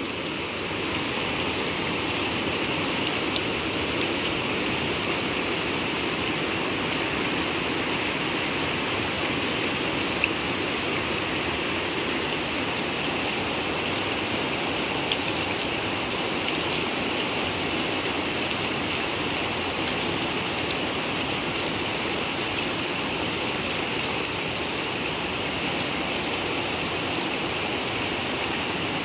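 Steady heavy rain falling on a flooded courtyard, splashing into standing water, with a few louder single drips now and then.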